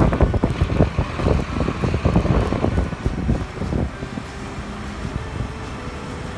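Strong post-typhoon wind buffeting the microphone: a gusty low rumble that swells and drops.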